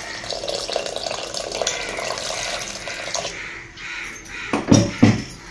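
Water pouring in a splashing stream from a copper jug into an aluminium pressure cooker, stopping about three seconds in. Near the end come two dull knocks about half a second apart.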